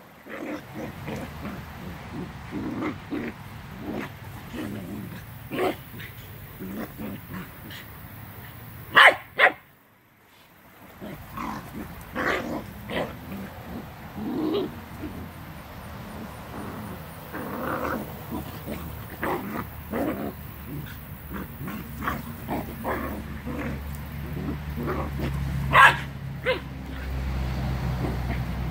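A Great Dane and a West Highland white terrier play-fighting: scattered short barks, yips and play growls, with the loudest barks about nine seconds in and near the end.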